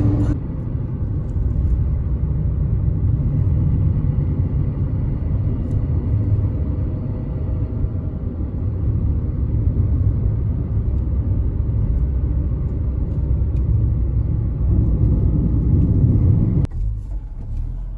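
Car driving, a steady low rumble of engine and road noise. It cuts suddenly to a quieter rumble near the end.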